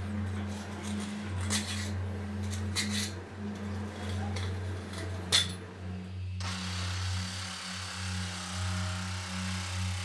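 A metal pick clicking and scraping against a cast iron hammer head, with a few sharp clicks. Then, from about six seconds in, a reciprocating saw runs steadily, cutting at the casting's sprue.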